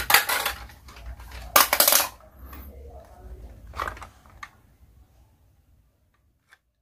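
Hard plastic toy fruit and vegetable pieces clattering and knocking together as they are handled, with two loud clatters in the first two seconds and a few lighter clicks about four seconds in.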